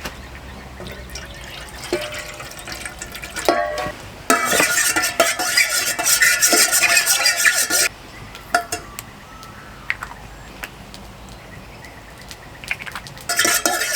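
Camp cooking sounds: metal utensils clinking and scraping in a pot, with liquid stirred and poured. Scattered knocks at first, then two loud, busy stretches of clatter that start and stop abruptly, about four seconds in and again near the end.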